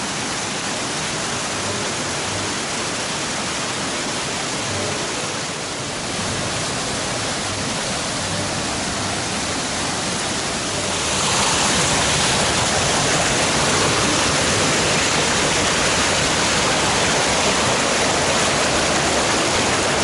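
Rushing white water of a stream cascading over rocks down a steep slope, a steady dense rush; it gets louder and brighter about eleven seconds in.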